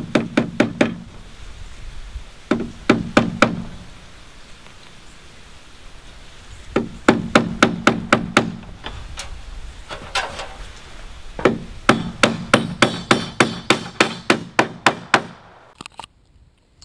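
Steel claw hammer driving 1-1/4 inch nails through an H1 hurricane clip into the wooden wall plate. It strikes in quick runs of about five blows a second, with short pauses between the runs. The longest run comes near the end, and its strikes ring more sharply.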